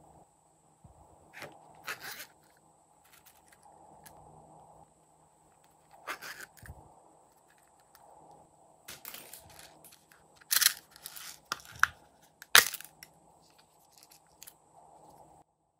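Scattered light taps, clicks and rustles of small slime decorations, foam stars and sprinkles, dropped onto slime in glass trays and shaken from a plastic container. A few sharper taps come about two-thirds of the way through.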